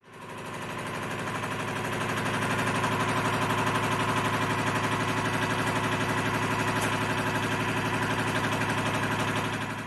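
Rhombic-drive Stirling engine running steadily, a mechanical hum with a fast, even pulse. It fades in at the start and drops a little near the end.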